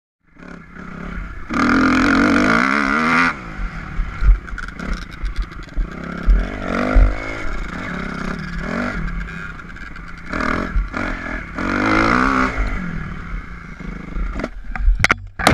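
Kawasaki KX250F dirt bike engine revving up and falling back again and again while ridden hard on a dirt track, with intermittent sharp knocks. Near the end comes a short cluster of sharp knocks as the bike crashes.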